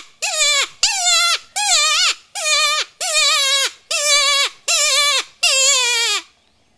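Mouth-blown predator call sounding a string of about eight short, wailing distress cries, each falling sharply in pitch at its end, blown to lure in a coyote. The cries stop shortly before the end.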